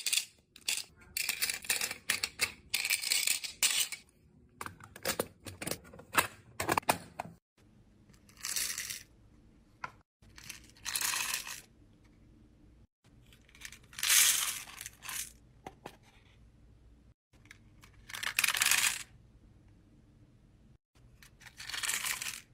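Small plastic charms clattering with many quick clicks as fingers rummage through them in a clear plastic compartment box. After a cut, beads poured from a small paper box into a plastic bead organizer's compartments: five separate rattling pours of about a second each.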